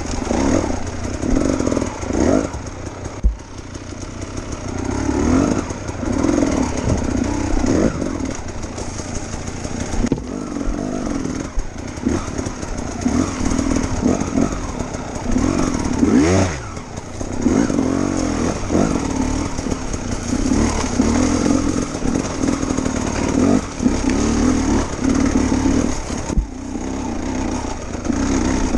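2016 KTM 300 two-stroke single-cylinder enduro motorcycle engine revving up and down over and over as it is ridden over a rocky, overgrown trail, with one sharp rev and drop about halfway through.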